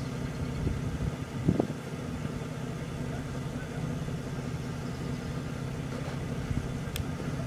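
An engine idling steadily throughout, with a short thump about a second and a half in. Later, a faint small splash as a turtle drops off the dock into the water, then a sharp click near the end.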